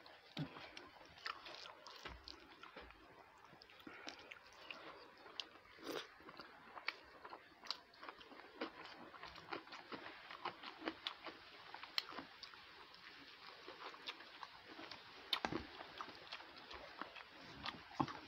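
A person chewing and biting food close to a clip-on microphone, with many short, sharp clicks at an uneven pace.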